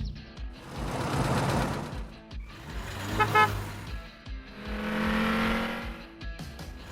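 Cartoon vehicle sound effects: an engine hum and whooshes that swell and fade twice, over background music with a short run of chiming notes.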